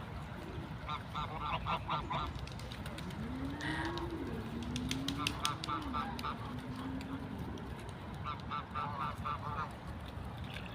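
Waterfowl calling in three quick runs of repeated honking quacks, over a steady low rumble. A low wavering tone runs through the middle.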